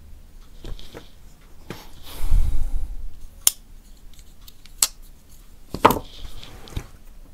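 Two folding knives being handled: a low handling rumble, then two sharp metallic clicks of the blades and locks as they are closed, followed near the end by a louder knock and a softer one as the closed knives are set down on the newspaper-covered table.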